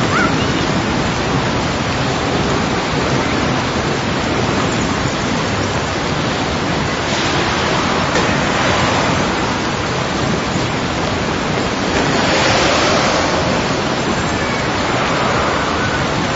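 Dense, steady wash of noise from many layered outdoor garden field recordings blended into one sound-art collage, with no clear single source and swelling briefly twice.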